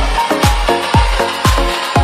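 Electronic dance music with a steady kick drum beating about twice a second.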